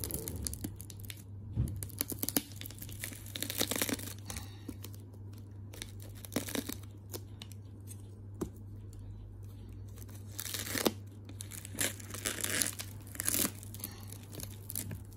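Scissors cutting through layers of plastic cling wrap on a cardboard parcel, with the wrap tearing and crinkling in irregular rasps.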